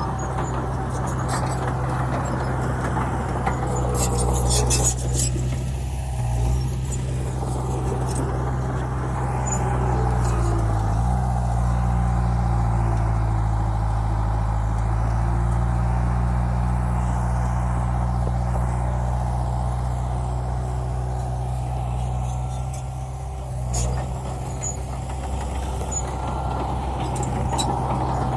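Bulldozer's diesel engine running steadily under load, its pitch dipping and then picking up again about ten seconds in, with a few brief metallic clanks.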